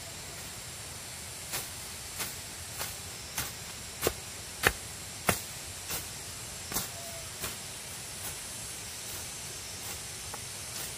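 A run of sharp, evenly spaced knocks or strikes, about three every two seconds, over a steady hiss. They grow louder toward the middle and then fade and slow toward the end.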